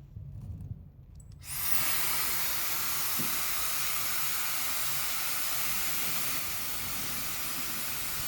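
Mini high-speed hair dryer switching on about a second and a half in after some low handling rumble, then blowing a steady, loud rush of air. The rush drops slightly in level about six seconds in.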